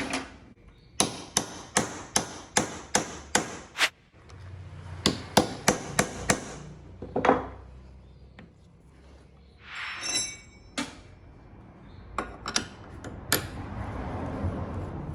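Hammer strikes on a starter motor being taken apart: a run of about eight evenly spaced sharp knocks in the first few seconds, a second run a little later, then a brief rushing noise and a few more knocks near the end.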